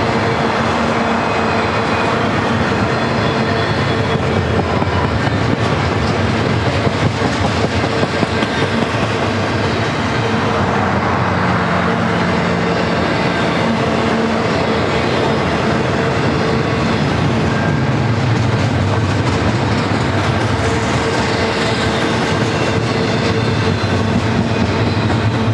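Double-stack intermodal train's loaded well cars rolling steadily past: a continuous rumble of steel wheels on rail with clickety-clack over the joints, and a faint steady tone underneath.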